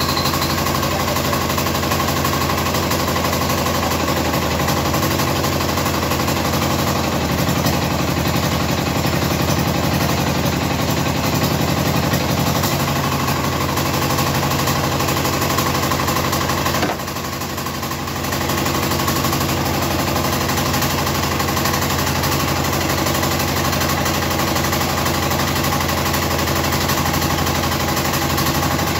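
Platinum 7.5 hp single-cylinder diesel engine running steadily with a rapid knocking beat, dipping briefly in level about two-thirds of the way through.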